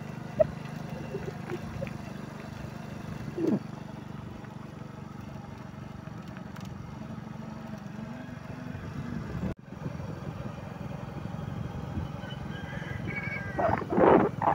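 Steady low outdoor rumble with a few animal calls: one about three and a half seconds in and a louder cluster near the end. The sound drops out briefly about two-thirds through.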